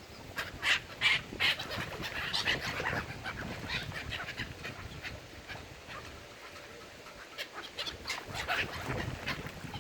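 Waterbirds calling: many short, harsh calls in quick succession, busiest in the first few seconds and again near the end.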